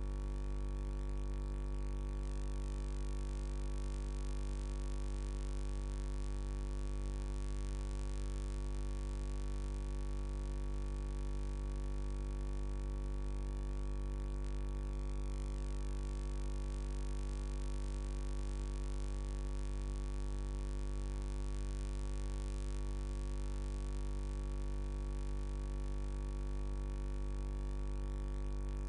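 Steady electrical mains hum, a buzzing drone with many overtones that does not change.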